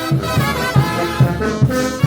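A brass band plays a tune with trumpets and trombones over a steady low beat, about three strokes a second.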